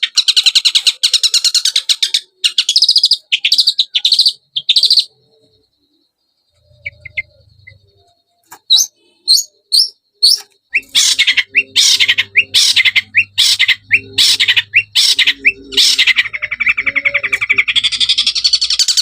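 Long-tailed shrike (cendet) song played as a lure track to set a quiet captive shrike singing: fast, harsh, high trilled phrases that break off about five seconds in, then scattered chirps, a run of loud repeated notes, and a dense buzzy trill near the end.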